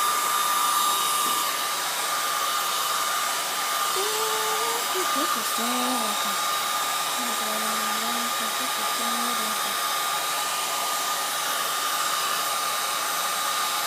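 Handheld hair dryer running steadily on its low setting: an even rush of air with a thin, steady motor whine.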